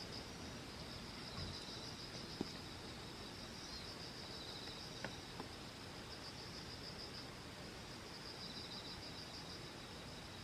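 Insects chirring steadily in a high, pulsing band, with short trills breaking in now and then and a few faint clicks.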